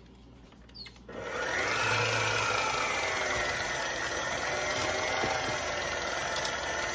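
Electric stand mixer switching on about a second in and running steadily with a motor whine, beating an egg into creamed butter and sugar for pound cake batter.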